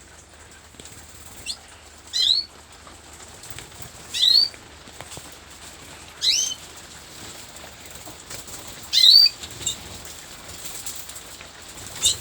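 Canaries giving short rising call notes, one chirp about every two seconds, five in all.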